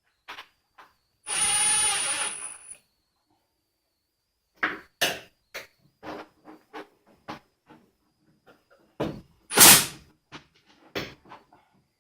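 Electric screwdriver runs for about a second and a half, driving a screw. It is followed by a series of light clicks and knocks of parts being handled, with one louder knock near the end.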